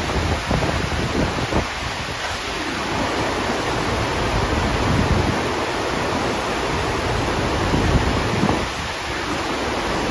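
Steady rushing of the FlowRider surf simulator's pumped sheet of water flowing up the ramp, with wind buffeting the microphone.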